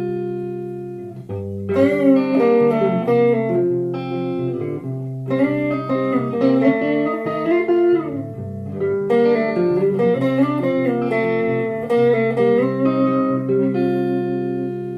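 Guitar introduction: picked chords and single notes played fingerstyle, ringing on between phrases.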